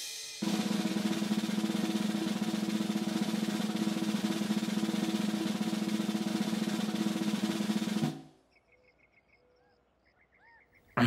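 Snare drum roll played steadily and fast, the kind of suspense roll that leads up to a circus stunt. It stops abruptly about eight seconds in, leaving near silence with a few faint high chirps.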